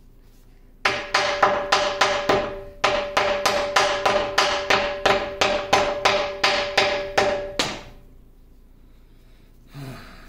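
A mallet strikes a cast-iron lathe bracket about twenty times in quick succession, roughly three to four blows a second with a short pause early on, driving the leadscrew and feed-rod end bracket off its shafts. Each blow rings with a steady metallic tone from the casting.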